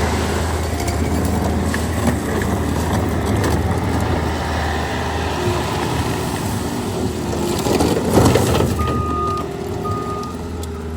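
Bobcat T66 skid steer loader's diesel engine running steadily, rising briefly about eight seconds in, with two short backup-alarm beeps near the end.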